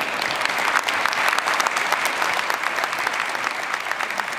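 Audience clapping steadily: applause for a team receiving its award.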